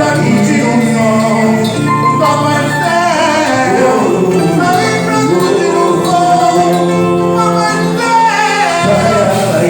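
A song with sung vocals over a full instrumental backing, the voices holding and gliding between notes.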